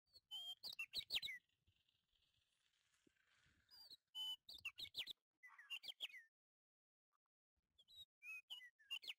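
A small bird chirping in three quick bursts of short, sweeping high notes, with a faint rustle between the first two.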